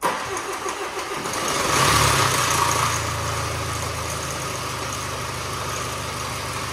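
Range Rover Evoque's Ingenium four-cylinder diesel cranked on the starter, catching about two seconds in with a brief rise in revs, then settling to a steady idle. This is its first start after a timing chain and tensioner job, with no oil yet in the filter or around the chain, and the timing chain is rattling.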